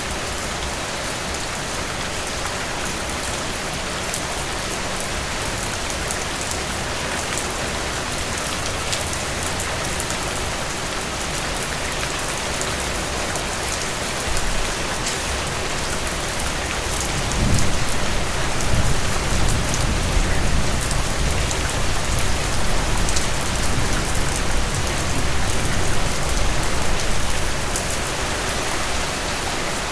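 Steady rain falling on a surface. A little past halfway a low thunder rumble rolls in under the rain, then fades away shortly before the end.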